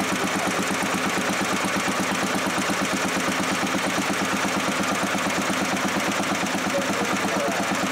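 The 1969 Sears 8XL garden tractor's single-cylinder Craftsman engine running steadily at idle with an even, rapid firing beat. It sounds pretty good, running smoothly once started.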